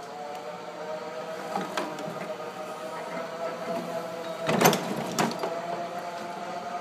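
Golf cart driving across a shop floor, its drive running with a steady whine, with two rattling knocks a little past halfway.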